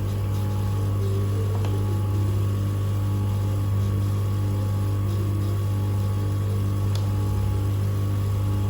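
Manual three-stone lens edging machine running with a steady low motor hum.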